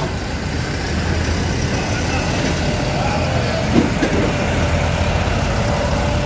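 Farm tractor engines running steadily as tractors drive past, a low rumble.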